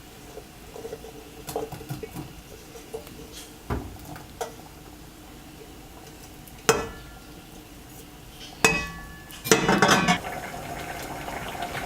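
Metal utensils clinking and knocking against a cooking pan as chopped shallots, sliced coconut and green chilli are added to a boiling gravy. Scattered light clicks, two louder ringing knocks in the middle, and a short scraping stir near the end.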